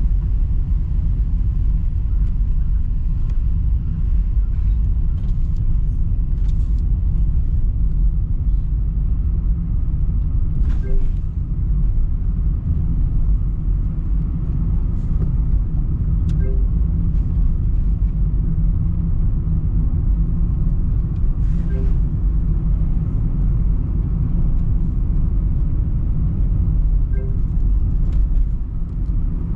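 Road noise inside a moving car's cabin on a wet road: a steady low rumble from the tyres and engine, with a few faint clicks.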